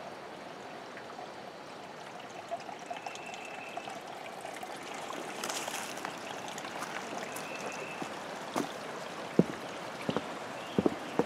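Evening woodland ambience: a steady hiss with a short, high-pitched call repeating about every four seconds, and a few sharp clicks near the end.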